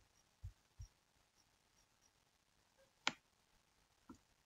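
Near silence, broken by three faint low thumps in the first second and then two clicks: a sharp one about three seconds in and a fainter one near the end.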